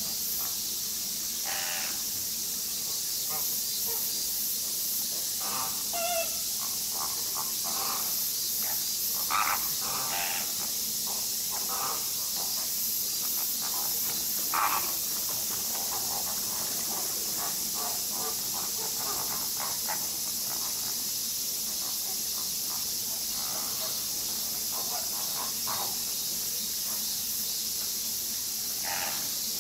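A flamingo flock calling in short, scattered bursts, a few louder than the rest, over a steady high-pitched hiss.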